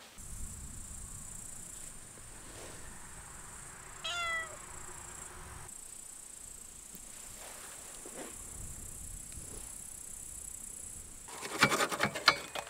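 A domestic cat meows once, about four seconds in. Near the end comes a quick run of loud metallic clanks and knocks.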